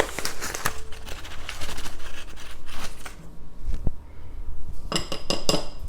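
Kitchen utensils handled at a mixing bowl: scraping and rustling, then a quick run of ringing clinks about five seconds in.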